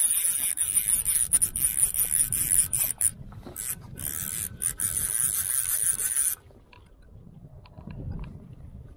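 Fly reel's click-and-pawl drag buzzing as a hooked large white-spotted char pulls line off on a run, with a few brief breaks, stopping about six seconds in.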